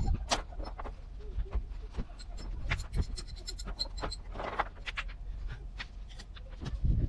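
Plastic rocker panel cover on a Nissan Altima being pried off, its retaining clips creaking and clicking loose in a scatter of sharp clicks and short squeaks, with a louder scrape about four and a half seconds in.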